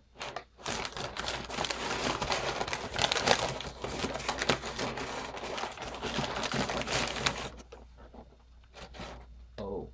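Brown kraft packing paper being crumpled and rustled by hand while being pulled out of a shipping box, a dense crackling that goes quieter for the last couple of seconds.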